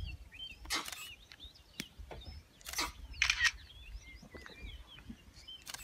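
Small birds chirping and twittering, with four short harsh hissing bursts that stand out louder, one about a second in, two close together around three seconds, and one near the end.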